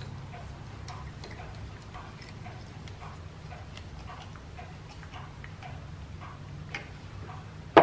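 Background machinery in a line-shaft machine shop: a steady low hum with a light, regular tick about twice a second. A sharp metallic clank comes right at the end.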